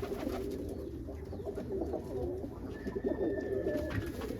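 Many domestic pigeons cooing together in a loft, their low calls overlapping without a break.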